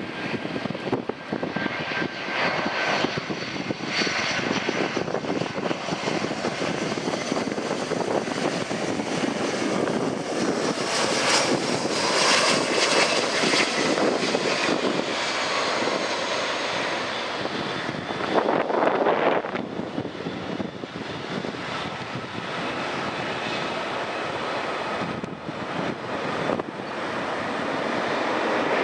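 Airbus A319 jet engines during a landing: a steady rushing noise with a faint high whine, swelling in the middle and peaking briefly a little past halfway.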